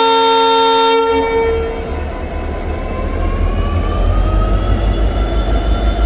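WDP4D diesel locomotive's horn sounding a very loud, steady blast that cuts off about a second in. The locomotive's EMD two-stroke diesel engine then throttles up to pull away, with a whine rising in pitch and a deep pulsing throb.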